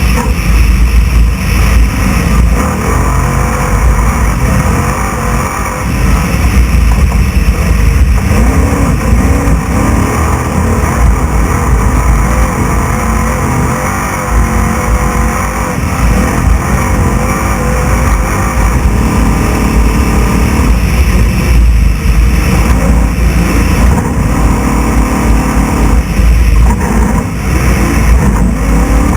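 Class 6100 desert race truck's engine running hard, its pitch rising and falling as the throttle opens and closes, over a heavy low rumble of the truck pounding over rough dirt, heard onboard.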